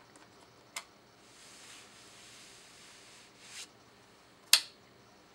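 A few sharp clicks over quiet room tone, the loudest about four and a half seconds in, with a soft hiss between them.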